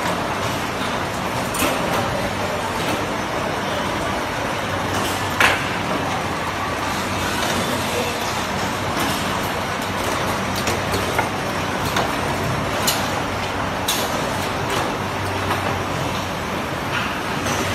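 Automated LED panel light assembly line running: a steady mechanical din with a low hum and a few sharp clicks, the loudest about five seconds in.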